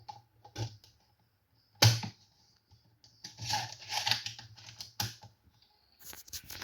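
Irregular sharp clicks and taps, like keys or hard plastic being handled, with the loudest single click about two seconds in and a quick run of taps around the middle. A rustling, scraping handling noise starts near the end.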